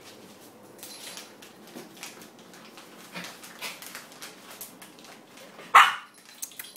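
Alaskan Malamute puppy giving one short, sharp bark near the end, after a few seconds of faint clicks and scuffs.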